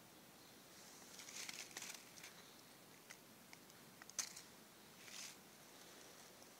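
Faint crackling and rustling of dry leaf litter as a hand moves among the leaves handling a mushroom, with a few light ticks and one sharp click about four seconds in.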